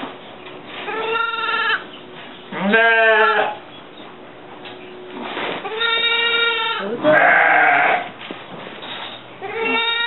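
Angora goat doe in labour bleating loudly, about five drawn-out calls a couple of seconds apart; one quavers and one comes out rough and hoarse, the cries of a doe straining through contractions.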